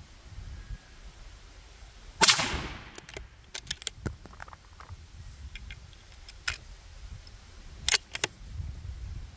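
A single rifle shot about two seconds in, with a short echo trailing after it. Several brief sharp clicks follow over the next few seconds.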